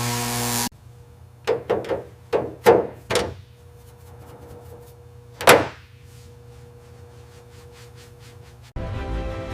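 A run of sharp knocks and thuds, about six in quick succession, then one louder knock a few seconds later, over a faint steady hum. Music cuts out just after the start and comes back near the end.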